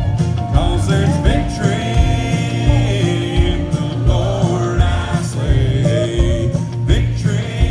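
Live country music: a man singing over strummed acoustic guitar, with a steady band beat underneath.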